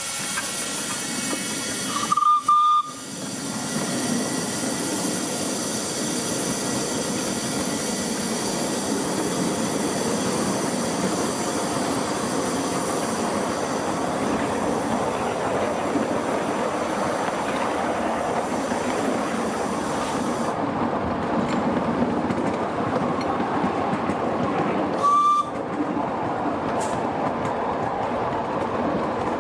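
Miniature live-steam locomotive running along its track with a steady hiss of steam and the run of its wheels on the rails. Its whistle gives a short, high blast about two seconds in and a shorter one near the end. The high hiss falls away about two-thirds of the way through.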